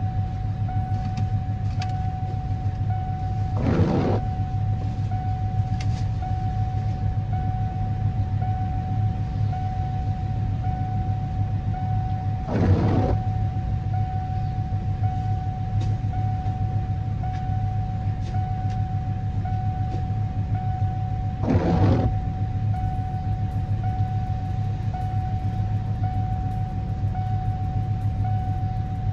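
Ford E-350 van engine idling steadily, heard from inside the cab, run after a jump start to recharge the battery. A low hum and a thin steady tone continue throughout, with a brief louder noisy surge about every nine seconds.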